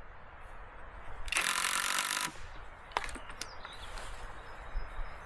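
A power tool runs in one burst of about a second, followed by two sharp clicks.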